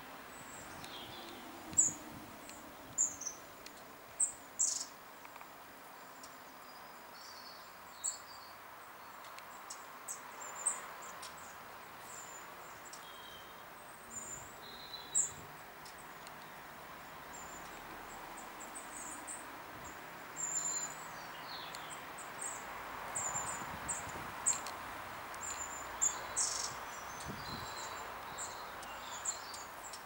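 Small garden songbirds chirping and calling: many short, high notes scattered irregularly, a few sharper and louder ones standing out, over a faint steady background hum.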